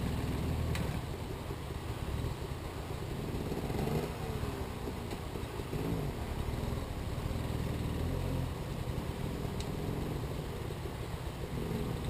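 Motorcycle engine running in the distance, its pitch rising and falling a few times as the rider works through a rocky creek crossing.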